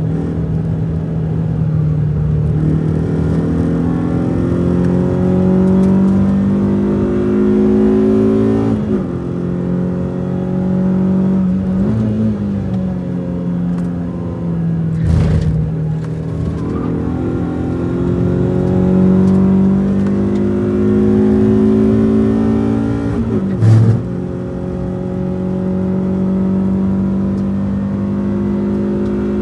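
Renault Twingo RS's 1.6-litre four-cylinder engine, heard from inside the cabin while it is driven hard on a race circuit. The revs climb slowly through the gears with sharp drops at three upshifts and slide down once as it slows for a corner. There is a short thump in the middle and another, louder one near the end.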